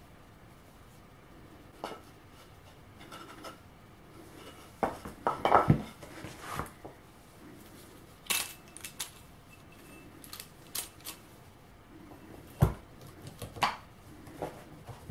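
Metal clicks, clinks and knocks from handling a locking right-angle corner clamp: its screw and jaw being adjusted, then the clamp being set on plywood pieces and its handle worked. The loudest cluster of knocks comes about five to six seconds in, with another sharp knock near the end.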